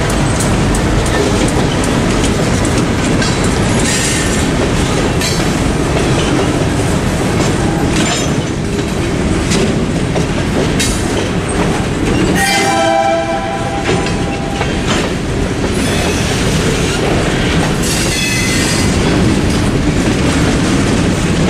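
Freight cars rolling past at close range, a steady rumble of steel wheels on rail with scattered clicks and clatter over the joints. About twelve seconds in, a sustained tone with several pitches sounds for a second or two, and it returns near the end.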